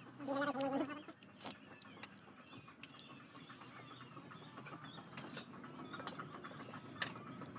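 Quiet outdoor ambience with faint chirping of birds. A short pitched call sounds in the first second, and a sharp click comes about seven seconds in.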